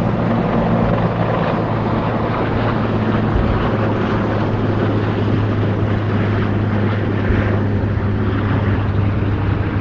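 Firefighting helicopter flying close by, its rotor and engine giving a steady, unbroken drone with a strong low hum.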